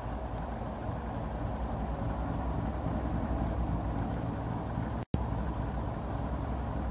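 2TE116UD twin-section diesel locomotive's V16 diesel engines running with a steady low hum as it creeps forward at low speed. The sound cuts out for an instant about five seconds in.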